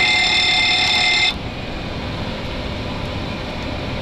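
Boeing 737-800 cockpit fire warning bell ringing during the fire detection test, sounding for just over a second and then cutting off suddenly, over the steady hum of cockpit fans and ventilation.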